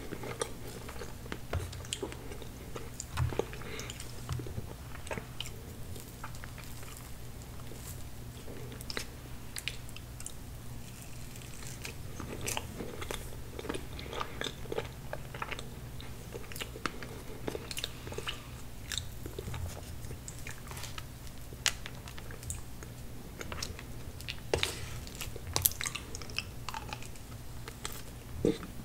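Close-miked chewing and biting of tiramisu cake eaten by the spoonful, with many short, sharp mouth clicks throughout.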